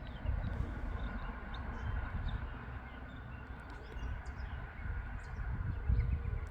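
Uneven low rumble, with faint short bird chirps scattered throughout.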